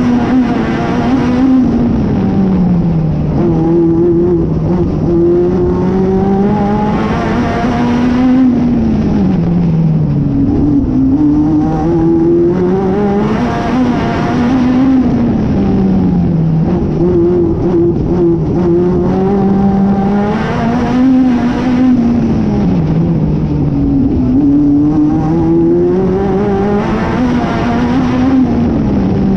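Onboard sound of a National Hotrod race car's engine at racing speed. It revs up and drops back in a regular cycle about every six and a half seconds, with the driver accelerating along each straight and lifting for each bend of the oval, over steady wind and tyre noise.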